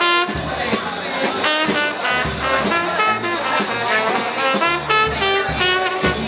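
Live jazz: a trumpet plays a melody of short, quickly changing notes over a plucked upright bass walking below, with a drum kit's cymbals keeping time.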